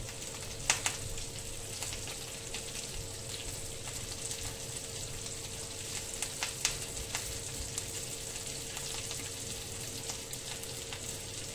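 Fish pan-frying in hot oil: a constant sizzle with scattered sharp pops as the oil spatters, over the steady hum of a kitchen extractor fan.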